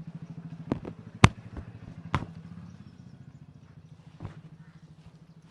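An engine idling with a steady low throb, fading toward the end, and several sharp cracks over it, the loudest about a second in and a last one near the end.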